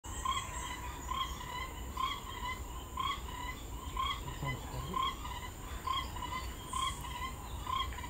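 Forest insects: a steady high-pitched insect drone, with a short call repeating about once a second.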